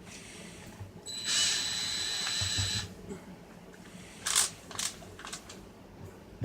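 Small electric screwdriver whirring for a little under two seconds as it drives a screw back into the radio's housing, then a few sharp clicks.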